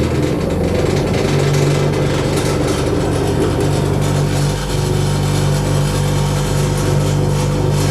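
Crown CT13547L bench grinder running steadily with a low hum. It shakes the table it stands on with a lot of vibration, because it is not yet bolted down in a fixed place.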